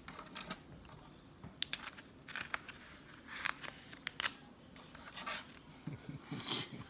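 Faint, scattered clicks and paper rustles of a thin picture book being handled and smoothed open.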